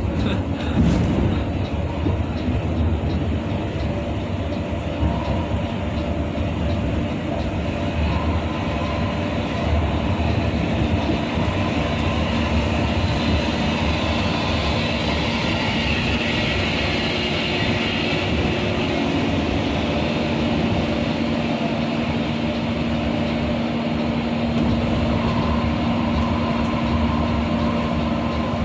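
Steady engine and road noise inside a bus cabin while the bus runs at highway speed, with a brief knock about a second in.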